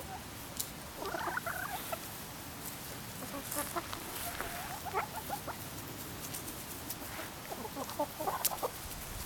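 Hens clucking softly in scattered short calls, a few at a time, with a few faint ticks among them.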